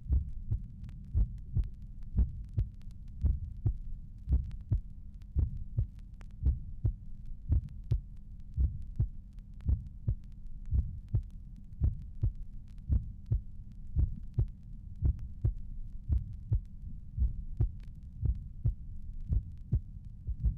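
A normal human heart recorded at the apex of the chest, with the first and second heart sounds clearly audible as a regular pair of dull knocks about once a second. A steady low hum runs underneath.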